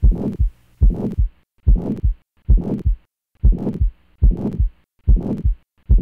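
Recorded heart sounds with a harsh murmur, about eight beats a little over one a second. Each beat has a pair of low thumps with a rough, noisy murmur filling the gap between them. The murmur is the harsh kind, mixing high and low pitches, which most often occurs in moderate to severe aortic stenosis.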